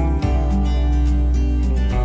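Background music: acoustic guitar over a steady bass and beat.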